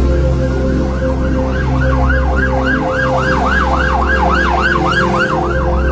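Emergency-vehicle siren in a fast yelp, its pitch sweeping up and down about four times a second. It comes in about a second in and fades near the end, over a steady low drone.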